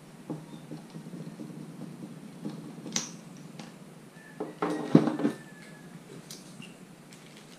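Handling noises on a workbench: scattered small clicks and knocks as a shock pump is taken off a mountain-bike rear shock's air valve and put down. There is a sharp click about three seconds in and a louder clatter about five seconds in.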